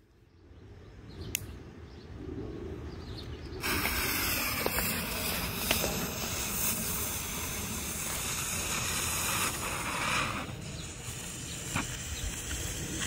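Cone-shaped firework smoke bomb catching about three and a half seconds in with a sudden loud hiss that keeps on steadily as it spews smoke, thinning a little after about ten seconds.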